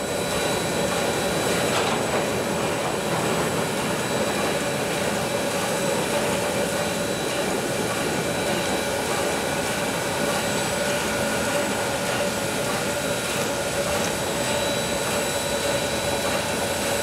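Steady whirring hum from a Lionel O-scale model train, with a few faint high steady tones running over it.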